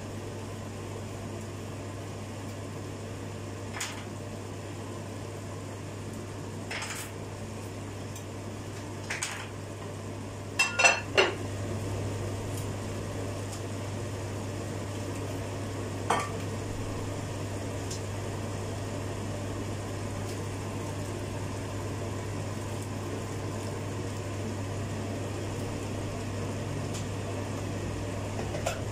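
Kitchen work with a knife and dishes: scattered short clicks and knocks, with a brief run of louder clattering about a third of the way through, over a steady low hum.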